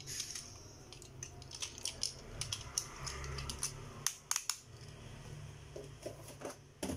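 Small plastic clicks and rattles from a Beyblade top being fitted onto its blue plastic launcher and handled, with a quick cluster of sharp clicks about four seconds in and another click near the end.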